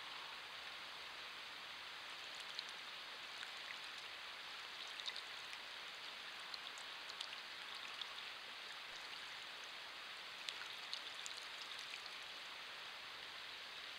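Western screech owl bathing in a bird bath, with scattered small splashes and drip-like ticks as it dips and shakes its wings in the water, over a steady faint hiss.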